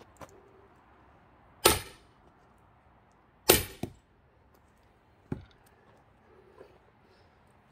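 Heavy blows driving an axe into a thick pine log to split it: three sharp strikes about two seconds apart, the second followed at once by a lighter knock, then a faint tap.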